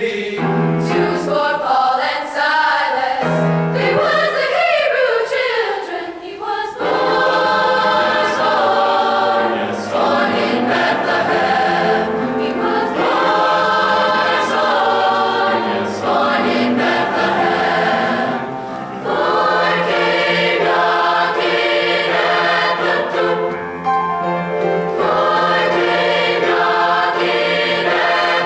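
High school choir singing a gospel spiritual. Gliding vocal lines in the first few seconds give way to the full choir singing together from about seven seconds in.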